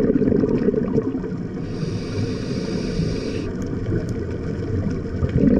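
Scuba diver breathing underwater through a regulator. A low bubbling rumble of exhaled air is followed about two seconds in by a hissing inhale lasting under two seconds, then another rumble of exhaled bubbles near the end.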